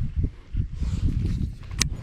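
Wind buffeting and handling thumps on the microphone, with one sharp click near the end as hands work a baitcasting reel.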